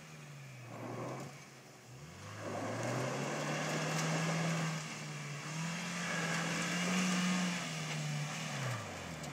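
Off-road vehicle engine revved hard and held at high revs for several seconds under load during a recovery pull, with a broad hiss alongside; the revs climb about two seconds in and drop away near the end, and the pull fails to free the stuck pickup.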